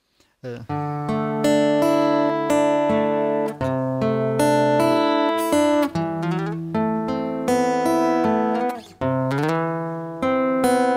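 Acoustic guitar fingerpicked, a melodic arpeggio passage of single plucked notes ringing into one another, starting about half a second in.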